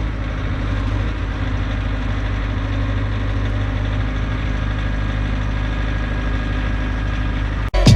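Small gasoline engine of a Generac pressure washer running steadily at an even speed. It cuts off abruptly near the end and music starts.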